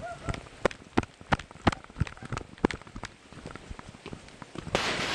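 Quick footsteps on hard ground, about three sharp steps a second, as people hurry along. Near the end a loud steady hiss sets in suddenly.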